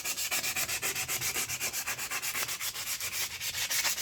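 120-grit sandpaper rubbed by hand on a steel brake rotor in quick, even back-and-forth strokes, about six a second: scuffing up the rotor face for new brake pads.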